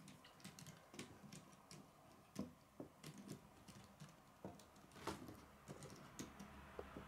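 Faint, irregular clicking and tapping of plastic K'nex pieces as they are handled and fitted onto a model truck chassis, with a few sharper clicks.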